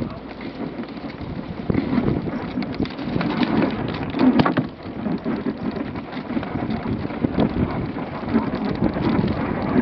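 Dogsled runners sliding and scraping over snow, with the sled frame rattling, picked up by a camera mounted on the moving sled. A steady crackling noise full of small knocks, loudest about four seconds in.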